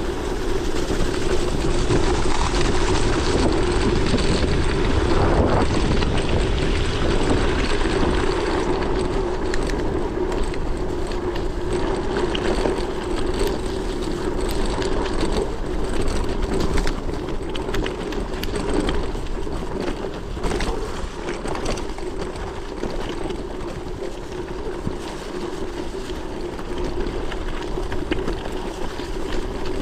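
Riding noise from a gravel bike on a bumpy track: wind rushing over the microphone and tyres rumbling with a steady hum, broken by scattered knocks and rattles from the loosened phone mount.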